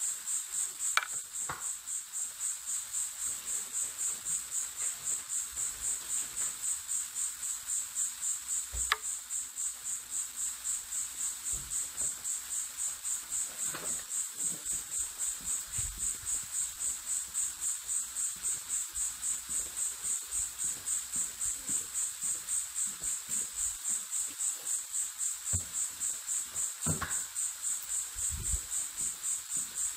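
Steady high insect chirping that pulses evenly about three times a second, with a few scattered knocks from walking over the leafy ground.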